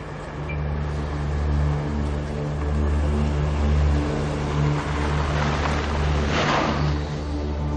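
A car driving along a dirt track toward the listener: a steady low engine hum with tyre noise on the dirt, and a brief rush of louder noise about six and a half seconds in.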